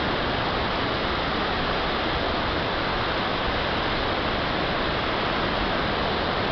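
Large waterfall running heavily, its water falling in a steady, even roar; the flow is swollen by weeks of rain.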